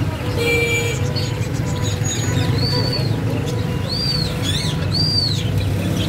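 Caged songbirds chirping: three clear whistled calls, each rising and then falling, in the second half. Under them runs a steady low rumble of street traffic.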